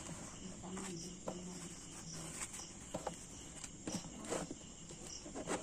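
Cardboard and a plastic bottle being shifted on a concrete floor: short scattered scrapes and clicks, a few louder ones near the end. Crickets trill steadily in the background.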